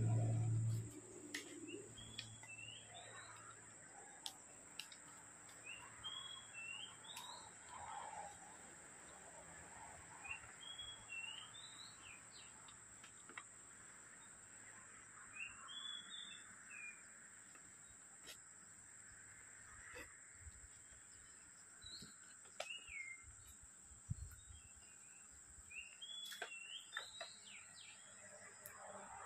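A songbird repeating a short whistled phrase that rises and falls, about every four to five seconds, over a steady high-pitched hum. A low hum cuts off about a second in.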